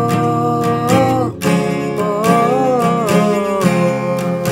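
Acoustic guitar strummed while a man sings long, drawn-out 'o' notes that slide in pitch, a new held note starting about one and a half seconds in. Recorded through a CAD U37 USB condenser microphone.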